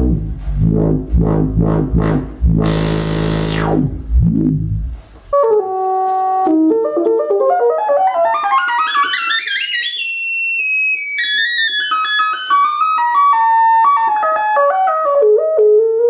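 Ritm-2 analog synthesizer improvisation. It opens with a thick, buzzy low drone under repeated filter sweeps and a rising hiss of noise, which cuts off abruptly about five seconds in. Then comes a fast run of clear, stepped notes that climbs high and steps back down.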